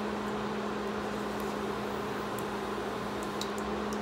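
A steady low hum with a level tone, and a few faint soft ticks and pops as a silicone spatula stirs thick barbecue sauce in a stainless steel saucepan while it comes to the boil.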